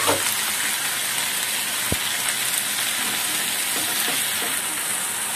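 Spiced dried-fish (shutki) masala sizzling in a frying pan as it is stirred with a spatula, the masala fried down until the oil has separated. One sharp click about two seconds in.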